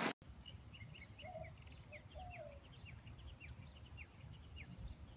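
Birds chirping faintly, a rapid scatter of short high chirps that keeps on throughout, with two lower calls about one and two seconds in, over a low background rumble.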